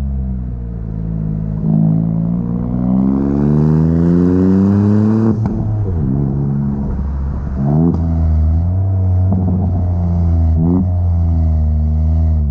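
Chevrolet Onix RS's 1.0 turbo three-cylinder engine through an aftermarket sport exhaust with a Luzian LA011 intermediate muffler: engine note rising steadily in pitch under acceleration, dropping sharply about five seconds in, then running steadily with two or three short throttle blips.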